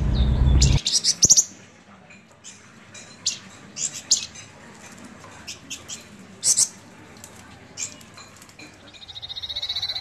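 Javan fulvetta (wergan Jawa) giving short, high chirps, singly and in quick clusters, with a rapid pulsing trill building near the end. A short, loud rush of noise opens the sound.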